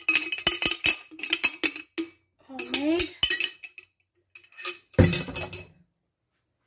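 A utensil clinking and scraping against an enamel baking dish while spreading sauce, in a quick run of clicks. A single louder knock comes about five seconds in.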